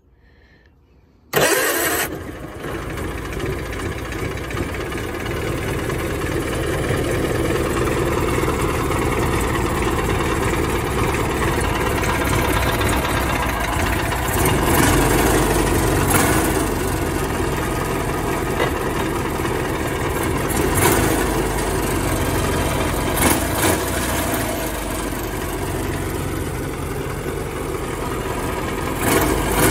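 The Argo's Kohler engine starts about a second in and then runs steadily, with a few brief swells in level.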